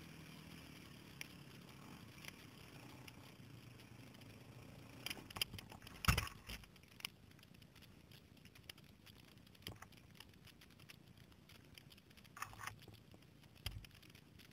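Camera handling noise: rubbing and rustling with scattered clicks, and a heavy knock about six seconds in. A faint low engine drone runs in the first few seconds and then fades.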